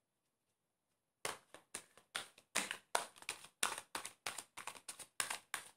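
A tarot deck being shuffled by hand: quick, even strokes of cards slapping together, about three a second, starting about a second in.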